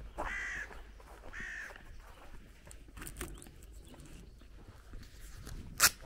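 A crow cawing twice, two short caws about a second apart, followed near the end by a single sharp click.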